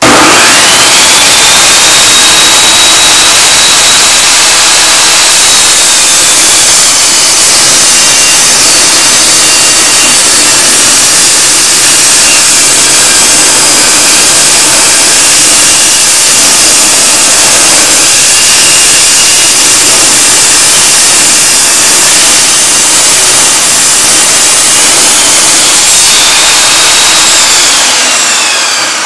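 Benchtop table saw ripping a wooden board stave lengthwise: the saw starts abruptly with a high whine that drops lower as the blade bites into the wood and stays down through the long cut. Near the end the whine rises again as the cut comes free, then falls away as the blade winds down.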